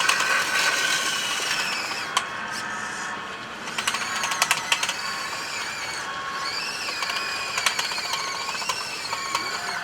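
Electric drive motors and gearboxes of a radio-controlled model construction machine whining, the pitch rising and falling as it moves. A quick run of clicks comes about four seconds in.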